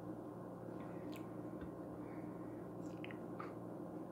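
A person chewing food with a few faint, scattered mouth clicks, over a steady low hum.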